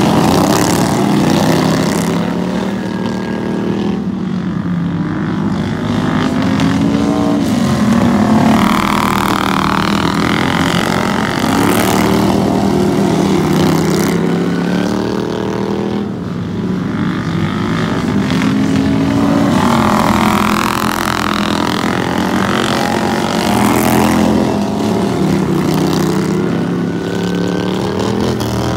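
Several racing lawn mowers' small engines running hard together, their pitches repeatedly rising and falling as they accelerate, lift off and pass by.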